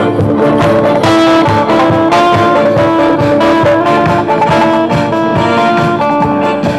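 Instrumental music with a melody of held notes over a steady beat.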